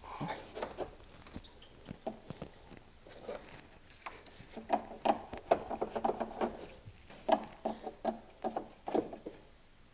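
Upper radiator hose being twisted and worked off its plastic radiator neck by hand, where it is stuck on its O-ring: a run of small creaks, clicks and rubbing noises, thickest in the second half.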